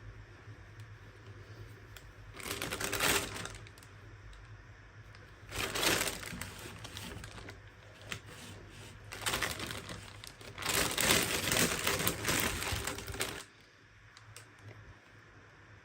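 Toy packaging being handled and opened by hand, with bursts of crinkling and clicking. The bursts come about four times, and the longest runs for a couple of seconds near the end.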